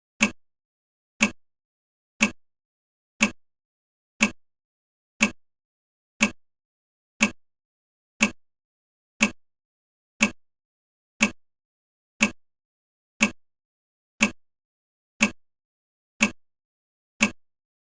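Countdown timer's clock-tick sound effect: one short tick every second, perfectly regular.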